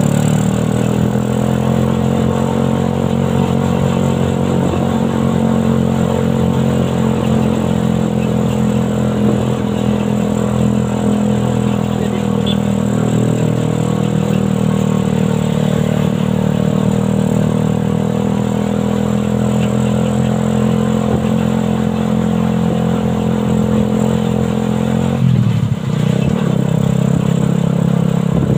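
Suzuki Satria FU 150cc single-cylinder motorcycle engine in a homemade buggy, running at a steady speed while driving, its note dipping briefly near the end before picking up again.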